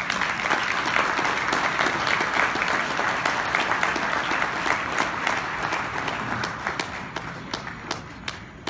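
Audience applauding. It starts suddenly, holds steady, then dies away to a few scattered claps near the end.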